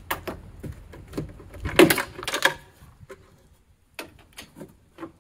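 Small metal clicks and clatter of a socket wrench and loose bolts being handled and set down on a vehicle's cargo floor, loudest about two seconds in, then a short lull and a few lighter clicks.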